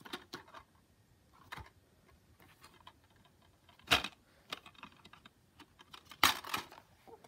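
Plastic DVD case being handled: scattered light clicks and taps, a sharp knock about four seconds in as it is flipped over, and a louder click and rattle just after six seconds as it is lifted.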